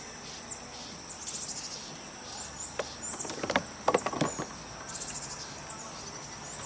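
Crickets and other insects trilling steadily in a high, pulsing chorus. A few short knocks and rustles near the middle are the loudest sounds.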